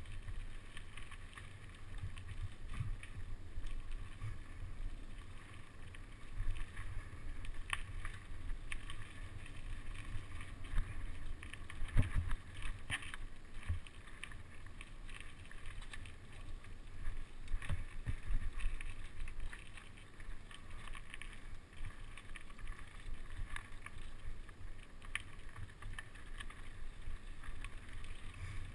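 Mountain bike ridden over a rough dirt trail, picked up through a handlebar-mounted camera: a steady low rumble of wind and tyres with frequent rattles and knocks from the bike over bumps, the hardest knock about twelve seconds in.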